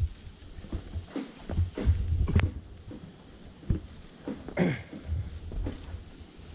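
Irregular footsteps and knocks on the planks of a suspended rope canopy walkway, mixed with dull low thumps.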